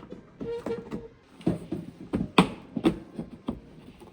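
Several sharp plastic knocks and clicks, the loudest about two and a half seconds in, as a plastic diffuser side flap is pushed and pressed onto its mounting clips on the bumper.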